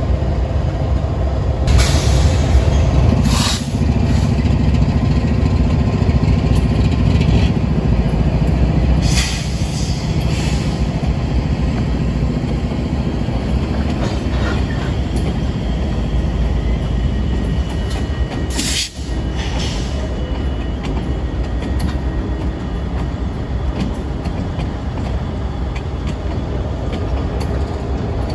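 A string of Norfolk Southern diesel locomotives rolling slowly past, their engines running with a steady low rumble. Several short, sharp noises break in over it.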